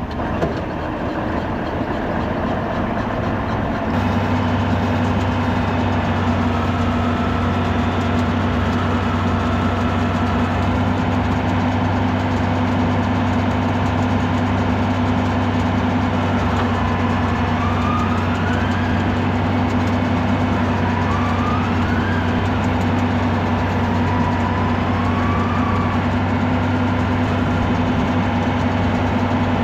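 Heavy diesel tractor engine running steadily. It steps up to a louder, higher-revving drone about four seconds in and holds there, with a few faint rising and falling whines near the middle.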